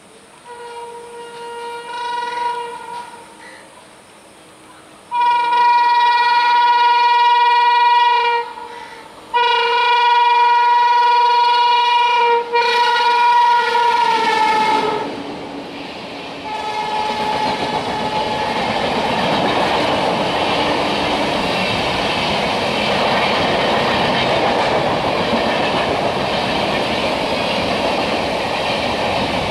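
Electric locomotive of an express train sounding its horn: a faint short blast, then two long loud blasts, the pitch dropping at the end of the second as it passes. Then the coaches rush past at speed with a steady rumbling rattle of wheels on the rails.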